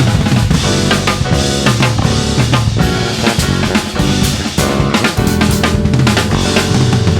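A small band playing live: a drum kit with kick, snare and rimshots driving a steady beat under a bass line and sustained melodic instruments.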